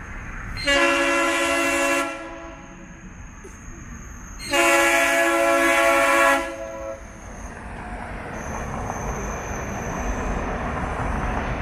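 DART light rail train sounding its horn twice, a blast of about a second and a second, longer blast of about two seconds, then the rumble of the train passing close, growing louder toward the end.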